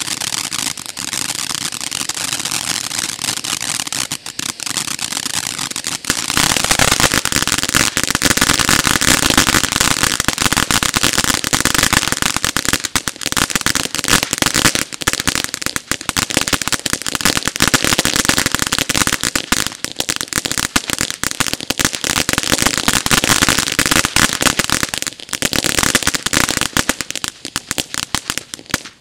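Imperial Dragon Monarch Butterfly 1.4G fountain firework burning, spraying sparks with a dense hiss and crackle. It grows louder about six seconds in and cuts off near the end as the fountain burns out.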